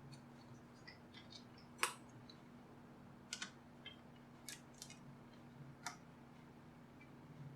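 Small Phillips screwdriver working out tiny screws inside a portable Bluetooth speaker: scattered sharp clicks and light ticks of the tip on the screws and plastic, the loudest about two seconds in. A faint steady low hum lies underneath.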